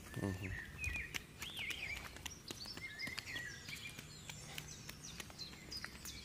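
Small birds chirping and whistling in short, quick notes, with a brief trill about a second and a half in. Light scuffing footsteps on a paved road sound under them.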